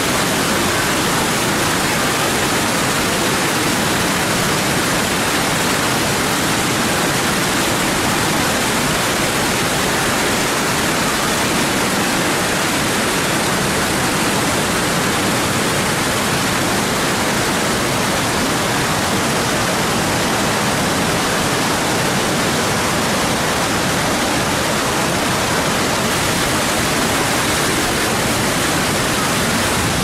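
Steady, loud rush of a waterfall swollen by heavy rain, with muddy water pouring over rock ledges and running off in hillside streams.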